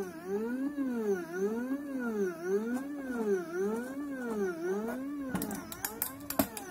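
3018 CNC machine's stepper motors whining, the pitch rising and falling in even sweeps about twice a second as the axes speed up and slow down. The whine fades out after about five seconds, and a run of sharp clicks follows.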